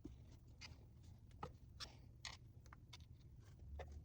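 Near silence with a few faint, light clicks and ticks: small metal engine parts and tools being handled during a hand teardown.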